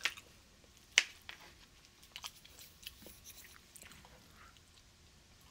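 Quiet eating sounds: wooden chopsticks clicking against a plastic bento tray while picking at food, with soft chewing. One sharp click about a second in, then a few smaller ones.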